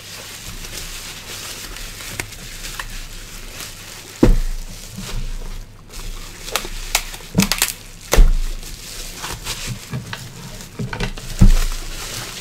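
Plastic bubble-wrap bag crinkling and rustling as it is pulled off a computer power supply, with four dull thumps as the heavy unit is handled on the desk.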